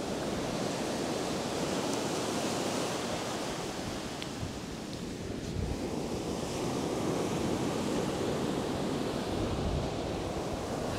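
Surf breaking and washing up the sand in a steady rush, easing a little around the middle and building again after.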